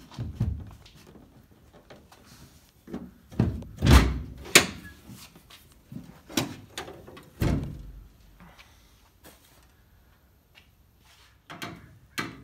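Car-body sheet metal being pushed and handled by hand: a series of dull thumps and knocks, the loudest a cluster about four seconds in.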